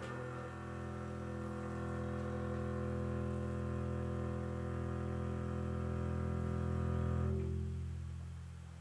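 Double bass holding a low bowed note, with a saxophone sustaining a long note over it that swells and then stops about seven seconds in, leaving the bass note sounding alone.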